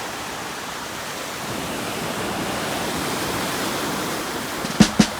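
Big Lake Michigan waves breaking on the shore, heard as a steady rushing noise. A couple of sharp knocks come near the end.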